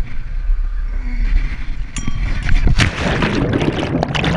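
Wind buffeting a chest-mounted action camera as the wearer swings and falls, then a splash a little under three seconds in as he plunges into a muddy water pit, followed by churning water.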